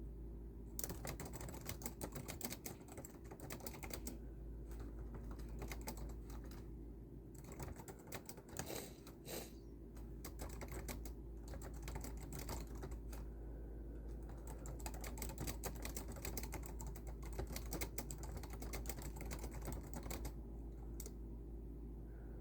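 Typing on a computer keyboard: a fast, uneven run of key clicks with brief pauses, thinning out to a last few clicks near the end.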